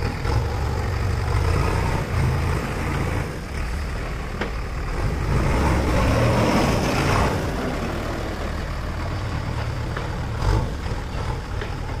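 Diesel engine of a JCB backhoe loader running as the machine drives, getting louder for a couple of seconds about halfway through as it passes close by.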